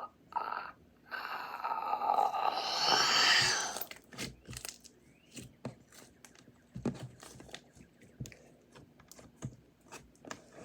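Butter slime being handled. A few seconds of continuous squishing and rustling come first, then scattered soft clicks and pops as it is pressed.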